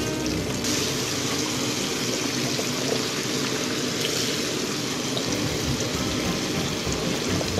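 Potato chunks deep-frying in a pan of hot oil: a steady sizzle and bubbling.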